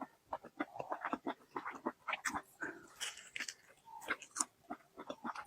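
Close-miked chewing and biting on a large chicken drumstick: a quick, irregular run of mouth and bite sounds, several a second.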